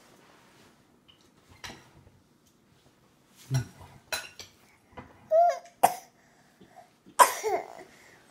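A toddler's hands knocking and slapping on a plastic high-chair tray in scattered sharp clicks, with a short baby vocal sound a little past the middle and a louder brief one near the end.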